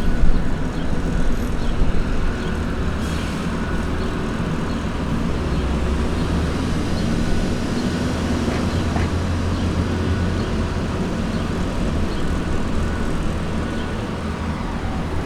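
Downtown city street traffic: a steady low rumble of vehicle engines with road noise, a little louder in the first couple of seconds.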